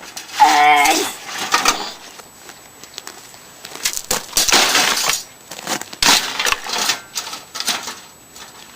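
Irregular metallic clattering and clinking of computer parts and a tool being worked loose inside a PC tower case, in several noisy stretches with sharp clicks.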